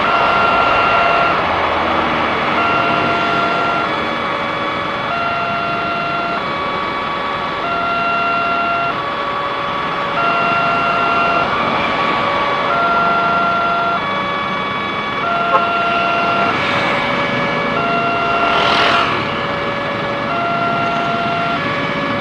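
Level-crossing warning alarm sounding while the barriers are down, signalling that a train is approaching. It is an electronic signal alternating between a higher and a lower pitch, each held for a little over a second, over steady road-traffic noise. A vehicle passes close by about three quarters of the way through.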